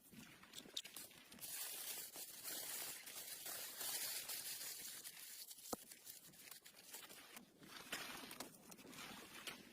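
Rustling, crinkling handling noise with scattered small clicks and one sharper click about halfway through.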